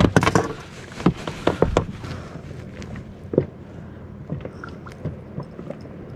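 Handling sounds on an inflatable boat: a quick run of clicks and knocks in the first two seconds from a plastic fish lip-grip holding a just-caught grouper against the boat, then one more knock about three and a half seconds in and faint small clicks as hands work a jig's assist hook.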